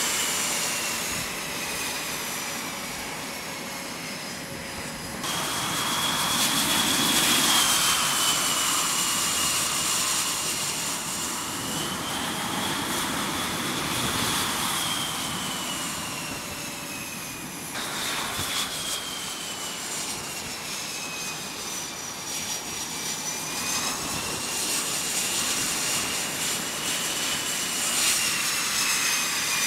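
F/A-18 Super Hornet jet engines running at low power as the fighters taxi on a carrier flight deck: a high whine over a steady rush that slowly rises and falls in pitch, changing abruptly twice.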